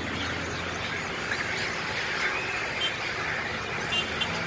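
A large mass of long-tailed macaques fighting, many high squeals and screeches overlapping into a continuous noisy clamour.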